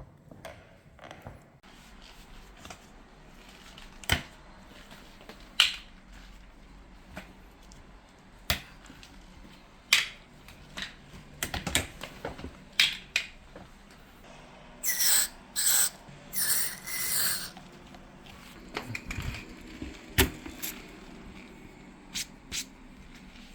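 Scattered clicks and knocks of office-chair parts being handled and fitted, with three short hissing bursts of spray grease about two-thirds of the way through.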